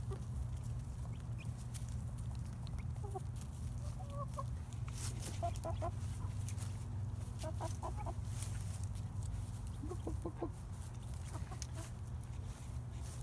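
Young Buff and Lavender Orpington chickens clucking in short calls that come in small clusters, about five times, over a steady low rumble.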